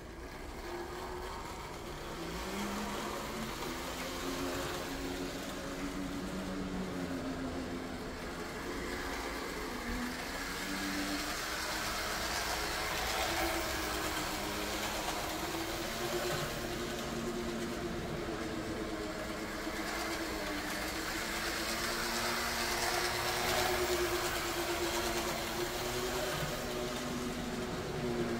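Model train locomotive's electric motor running as the train circles the layout: a hum whose pitch wavers up and down, over a steady rushing rattle of wheels on track.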